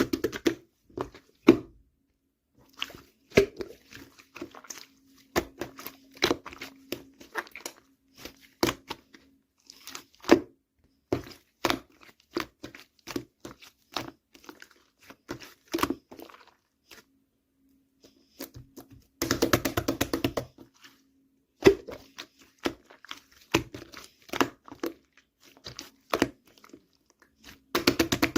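Mixed clay slime being squeezed, stretched and poked by hand: a string of sharp sticky clicks and pops, with a denser run of crackling about nineteen seconds in.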